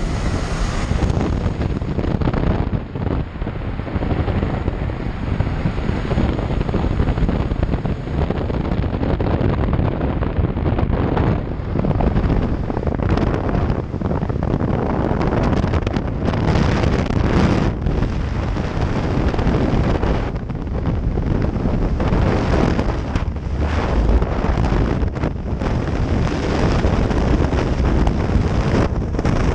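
Loud rushing wind over the camera's microphone, gusting up and down, first at the aircraft's open door and then in freefall.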